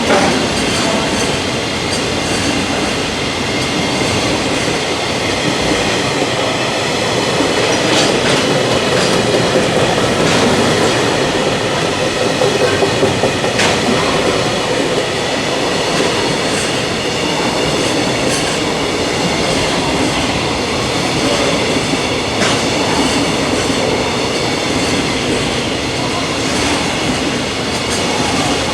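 A freight train's wagons rolling past at speed: a steady, loud rumble of wheels on rail, with a few sharp clicks as the wheels cross rail joints.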